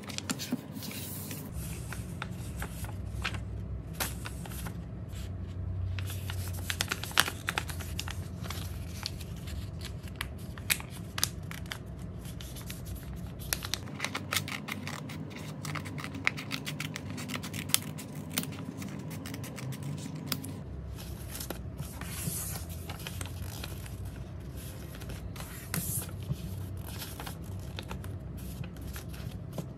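Small scissors snipping through paper, with sheets being creased, folded and rustled between cuts: many short, sharp snips. Near the end, a stack of paper sheets is handled and shuffled.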